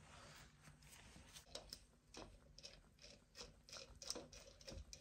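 Faint small clicks and taps of brass brake-line fittings being handled and fitted into the ports of a line lock solenoid.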